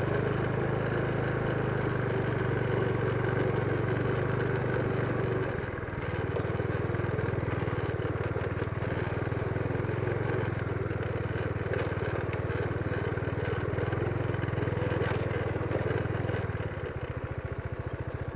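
Motorcycle engine running steadily while riding along a bumpy dirt track, easing off briefly about six seconds in and again near the end.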